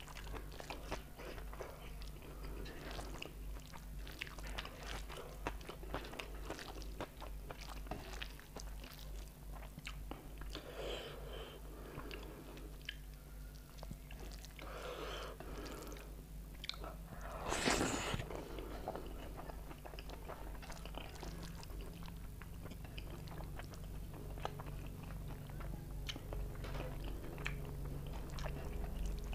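Close-miked eating sounds: wet chewing and lip smacks of rice and egg curry, with squishing as fingers mix the rice and curry on a steel plate. One louder sound stands out a little past halfway, over a steady low hum.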